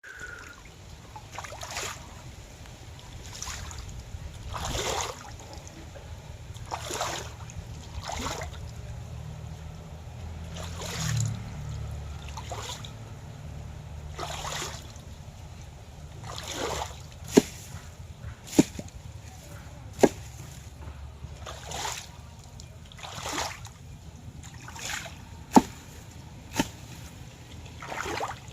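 Water splashing and trickling in irregular swishes every second or two, over a steady low hum, with a few sharp clicks in the second half.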